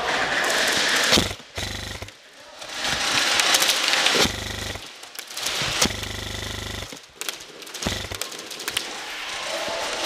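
Airsoft electric guns firing rapid full-auto bursts, about four bursts with a fast buzzing rattle, amid a wash of other gunfire and clicks.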